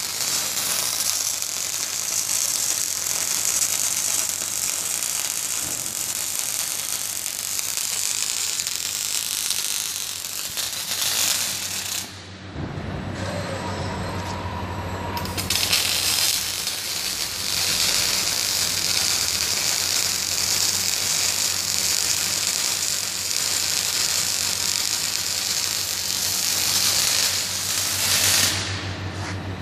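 Robot-held arc-welding torch on a Motoman HP20D-6 cell laying two welds. Each weld is a steady, dense crackling hiss lasting about twelve seconds, with a short pause between them filled by a lower mechanical whir.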